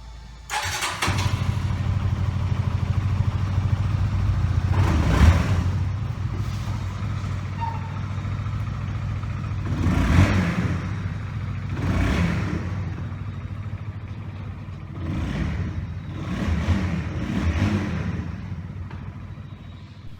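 Honda CBR150R's single-cylinder engine catching about half a second in, then running as the motorcycle is ridden, its sound swelling and easing several times, loudest about five and ten seconds in.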